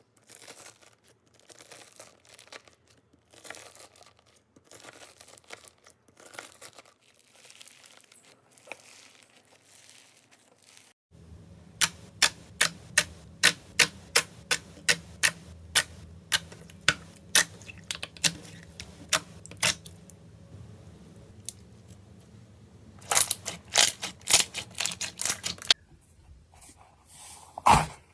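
Slime being handled for ASMR: soft crackling and tearing at first, then sharp clicking pops about twice a second over a low hum, coming faster near the end.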